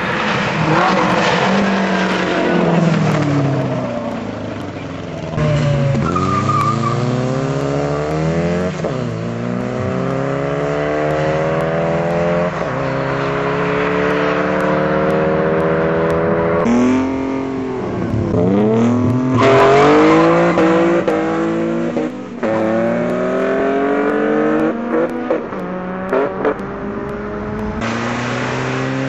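Car engines running hard at full throttle, rising in pitch through each gear and dropping at every shift, over several runs cut one after another.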